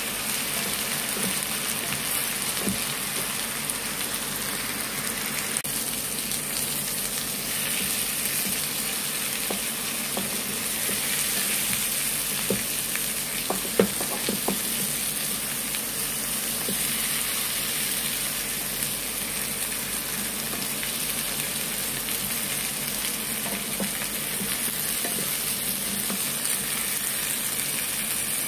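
Chicken breasts sizzling steadily as they fry in a pan with chopped onion and peppers, with one sharp knock about halfway through.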